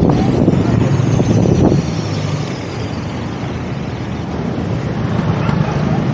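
A vehicle driving, its engine and road noise running steadily with wind buffeting the microphone. The noise drops a little about two seconds in.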